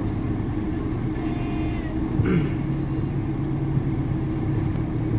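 A van's engine idles steadily, heard from inside the cabin as a low, even hum. There is one short, sharper sound about two seconds in.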